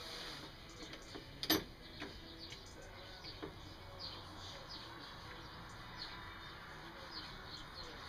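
Small birds chirping repeatedly in the background, with one sharp click about a second and a half in.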